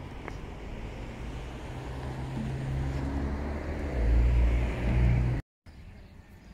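A motor vehicle on the street approaching and passing close, its low engine hum growing steadily louder, loudest about four to five seconds in, then cutting off suddenly at a break in the recording.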